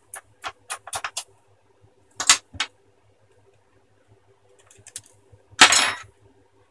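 Small metal tools and a tiny screw clicking and scraping against a laptop's plastic screen bezel at the hinge: a run of light clicks in the first second, a short scrape about two seconds in, and a louder, longer scraping clatter about five and a half seconds in.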